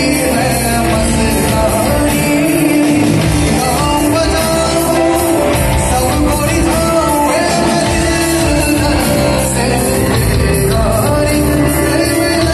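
Live band playing a song with a lead singer, amplified through a PA sound system.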